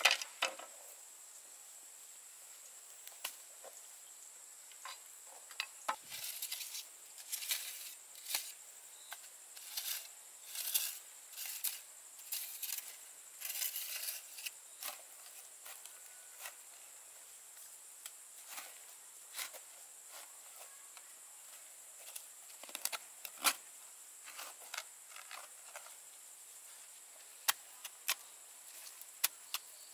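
Metal shovel digging into damp soil: scattered scrapes and sharp strikes of the blade in the dirt, busiest in the first half and again near the end, over a steady high hiss.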